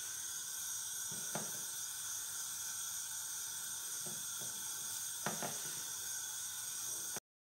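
Steady background hiss with a few soft taps and rustles as a fish fillet is pressed and turned in flour on a plastic sheet. The sound cuts off abruptly near the end.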